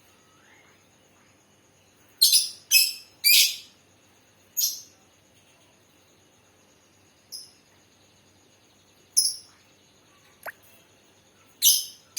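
Lovebird calling in short, harsh, rough-voiced shrieks. Three come in quick succession a couple of seconds in, then single calls follow a few seconds apart, and two more come near the end.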